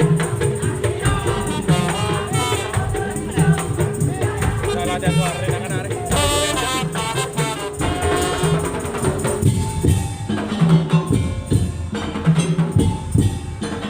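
Madurese tong-tong (daul) ensemble playing: drums struck in a steady rhythm with jingling, rattling percussion and a wavering melody over a held note. About ten seconds in the melody drops away and the drums and percussion carry on.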